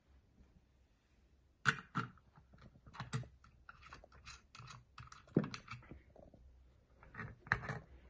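Small metal and plastic clicks and knocks from handling on a tabletop as the nut and the red plastic cover are taken off a pole saw attachment's gear head. Several sharper knocks stand out among the lighter clicks.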